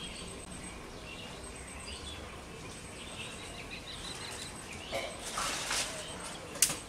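Faint outdoor ambience with birds chirping, a few brief noises about five seconds in and a sharp click near the end.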